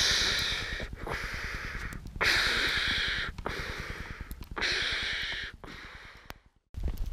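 Heavy breathing of a hiker out of breath from climbing in snow at altitude, close to the microphone: three long breaths about two seconds apart, each starting strong and fading, then a weaker one near the end.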